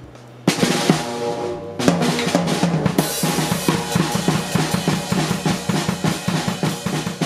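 Acoustic drum kit played with sticks: a hit with a cymbal wash about half a second in, then a fast run of strokes around the toms and snare with bass drum, and another cymbal crash about three seconds in.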